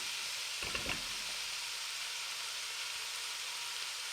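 Cubed chicken with diced onion and carrot frying in oil in a pan, a steady sizzle, with one short knock just under a second in.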